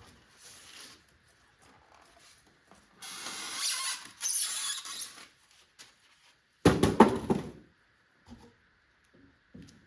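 Unboxing handling noise: cardboard and packing material rustling and scraping for a couple of seconds, then a sharp cluster of loud knocks about seven seconds in, as something hard is set down or knocked against the box, followed by a few light taps.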